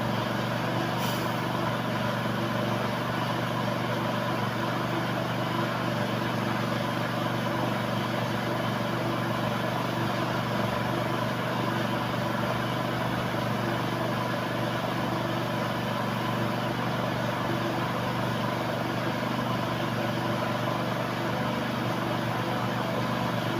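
2008 Honda CR-V engine idling steadily.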